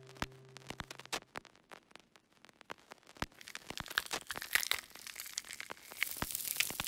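A low held drone fades out about a second in. Scattered sharp clicks and crackles follow, thickening into a steady hissing crackle, like old record or tape noise, from about three seconds in.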